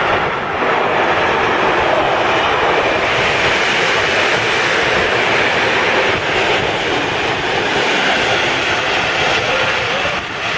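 Container wagons of a freight train rolling past at speed close by: a loud, steady rush of wheel and rail noise.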